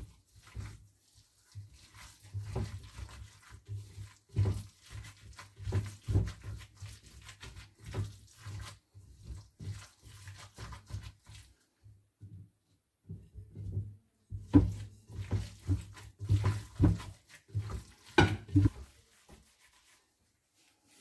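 A gloved hand squeezing and kneading raw ground beef in a bowl: irregular wet squelching and soft slaps, with a short pause about twelve seconds in and stopping shortly before the end.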